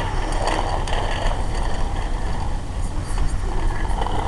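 Low rumbling noise of wind buffeting the microphone, with a few faint clicks.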